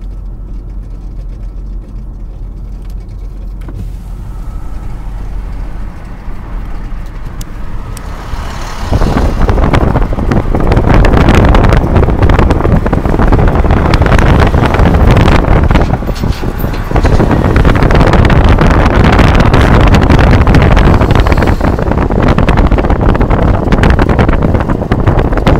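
A car driving on a highway: a low steady cabin hum at first, then, about eight seconds in, a loud rush of wind and road noise takes over and stays.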